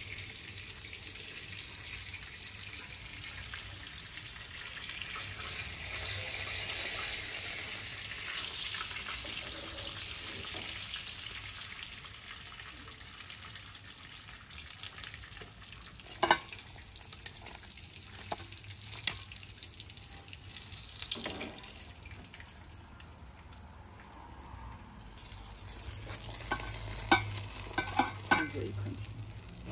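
Battered and crumbed dolphin fish (mahi-mahi) fillets sizzling as they shallow-fry in hot oil in a frying pan. A few sharp metal clicks of tongs against the pan come later on.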